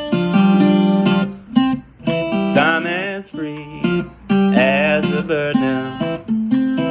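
Acoustic guitar music: strummed chords broken by short pauses. Twice, high sustained notes bend and waver with vibrato.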